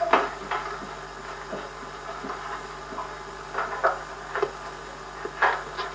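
Steady background hiss with a few short knocks and clicks scattered through, the loudest a little after the start and about four and five and a half seconds in.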